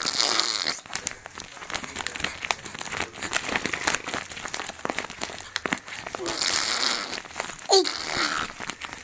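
Baby making noises with its mouth: wet spluttering and lip clicks, with stretches of blowing near the start and about six seconds in, and a short falling vocal squeal near the end.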